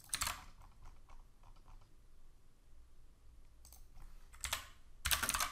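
Sparse typing and clicking on a computer keyboard, a few keystrokes at a time, with a short louder rush of noise near the end.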